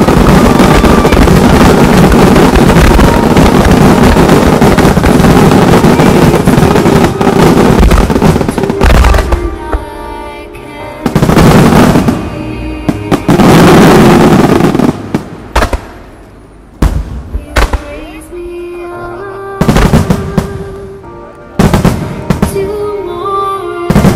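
A fireworks starmine finale: a dense, unbroken barrage of shell bursts and crackle for about nine seconds, which then thins to a handful of separate loud booms. Music from the show's loudspeakers carries on between the bursts.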